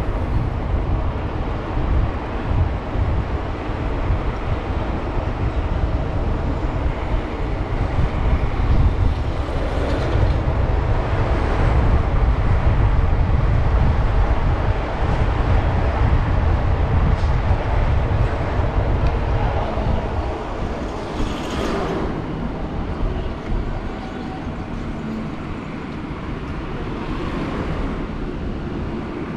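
Steady rumble of wind and road noise from a bicycle ride along a street with light traffic, easing somewhat for the last third.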